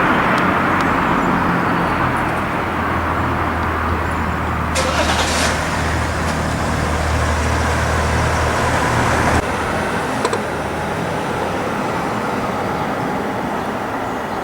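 Road traffic: a motor vehicle's engine running with a low, steady hum over general traffic noise. The hum cuts off suddenly about nine seconds in.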